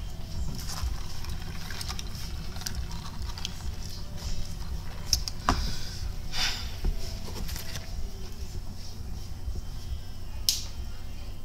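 Handling noises: a few short, sharp clicks and rustles, the loudest about five and a half seconds in and again near the end, over a steady low hum of room and microphone noise.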